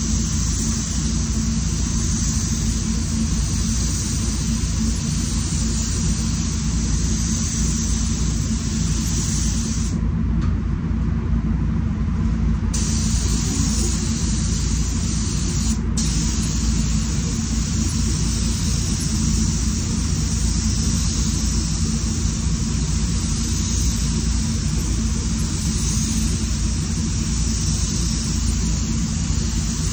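SATA Jet 5000 RP spray gun hissing as it sprays paint, over the steady low rumble of the spray booth's air handling. The hiss cuts out for about three seconds a third of the way in, as the trigger is let go, and again briefly about halfway.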